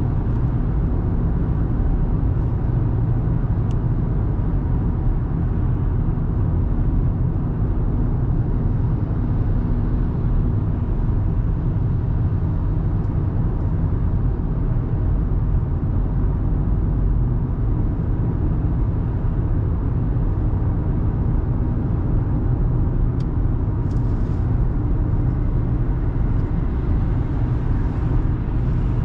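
2024 Audi A3 Sportback with a 1.5 TFSI four-cylinder engine driving at a steady speed: a constant low rumble of engine, tyre and wind noise, with no rise or fall in pitch.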